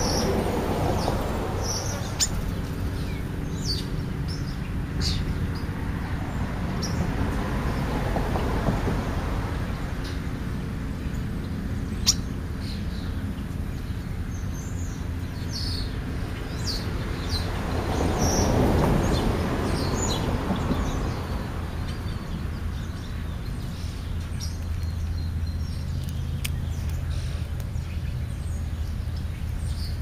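Birds giving short, high chirps, scattered throughout, over a steady low rumble that swells briefly about two-thirds of the way in.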